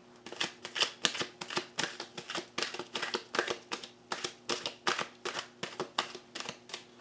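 A deck of tarot cards being shuffled by hand, overhand: a quick run of crisp card slaps and riffles, about three a second, that stops just before the end.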